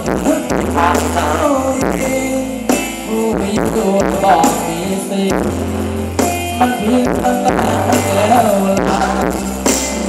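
Thai ramwong dance music from a live band: a steady, repeating bass line under drums and a wavering melody line.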